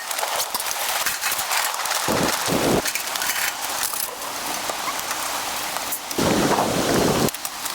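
Steady pattering hiss of a storm, like rain or sleet on a surface, with many fine ticks. Two heavier, deeper rushes come, one a couple of seconds in and a longer one near the end.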